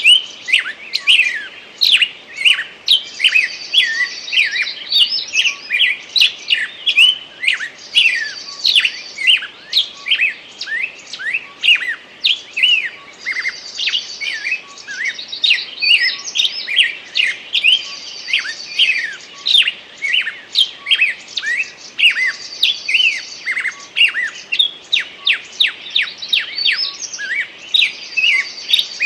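Wild songbirds singing: a dense, continuous stream of quick sweeping chirps, with a short high buzzy trill repeated every few seconds.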